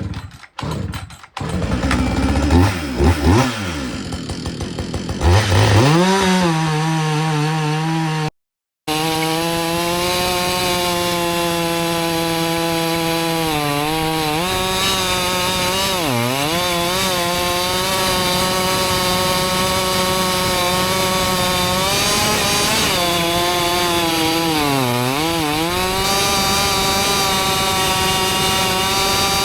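Husqvarna 562XP two-stroke chainsaw revving up and down, then held at full throttle cutting through a log. Its pitch sags briefly a few times as the chain bites under load.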